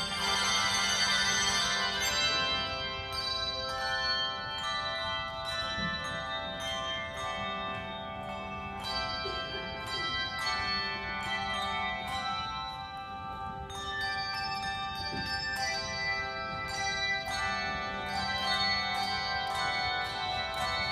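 Handbell choir playing a piece: many handbells struck in chords and melody, their notes ringing on and overlapping, loudest in the first two seconds.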